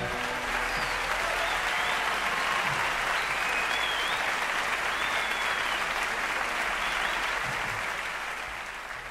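Audience applauding after a song ends, with a few short high whistles, fading out near the end.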